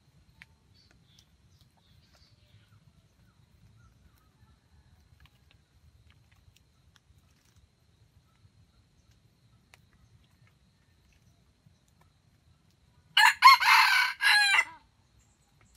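A red junglefowl rooster gives one short, loud crow about thirteen seconds in, broken into a few quick syllables.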